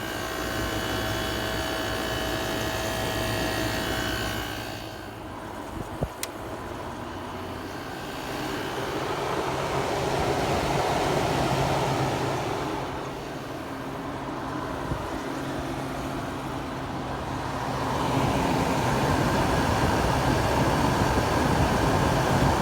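Late-80s Kenmore 5,000 BTU window air conditioner running on low: a steady hum from its Matsushita rotary compressor under the rush of the fan's air. There is one click about six seconds in, and the air rush grows louder in stretches, most of all near the end.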